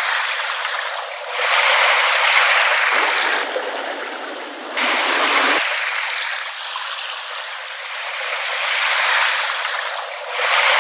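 Small ripple waves washing in and drawing back, a hissing wash that swells and fades every few seconds, with no deep boom beneath it.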